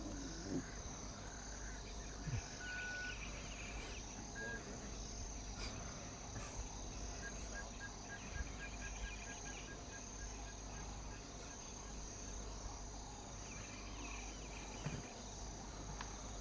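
Insects chirring steadily in grassland. About halfway through comes a faint run of quick, evenly spaced high pips.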